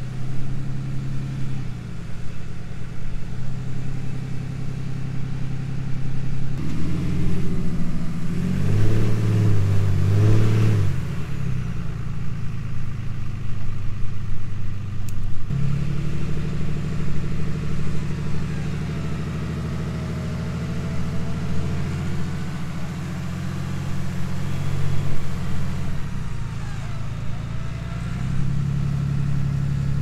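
Vehicle engine running under load during a winch recovery of a stuck pickup, its revs stepping up and down, with a higher, louder rev about eight to eleven seconds in.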